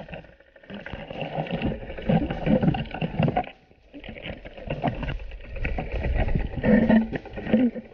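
Muffled underwater rushing and churning of water around a submerged camera, uneven in loudness and dropping away briefly about halfway through.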